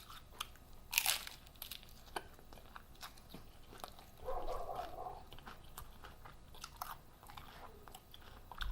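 Close-miked eating of a taco: scattered crunches and wet chewing clicks, with a sharper crunch about a second in and a short muffled mouth sound around four seconds in.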